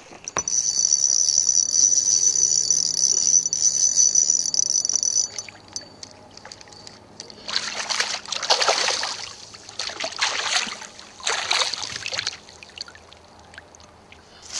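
A steady high-pitched buzz for about five seconds that stops abruptly, then three splashing strokes of a paddle through lake water, each about a second long.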